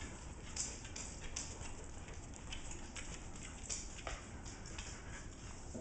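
Irregular light clicking and tapping, several times a second: claws of a dog and cats on a wooden parquet floor as they walk and scamper about.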